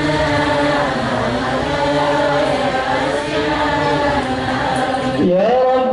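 A group of voices chanting a sholawat together, several pitches overlapping. About five seconds in, a single voice rises in pitch and holds a long sung note.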